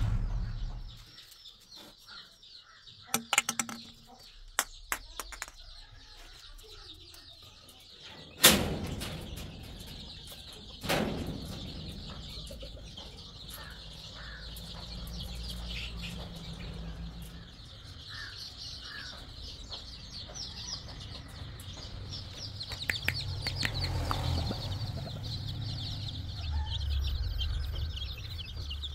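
A large flock of chicks peeping steadily in a high chorus. Two sharp knocks stand out, one about eight seconds in and another about eleven seconds in, and a low rumble runs under the peeping from the first knock on.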